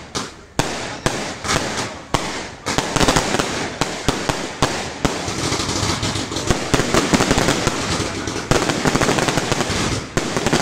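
Aerial fireworks going off: separate sharp bangs about twice a second at first, then from about three seconds in a dense, continuous run of rapid reports and crackle as many shells burst together.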